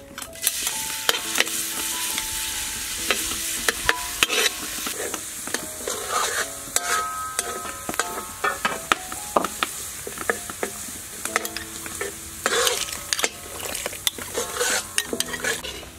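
Hot oil sizzling in a wok and a pot of water boiling hard, with a steady hiss and many scattered clinks and knocks of utensils against the metal.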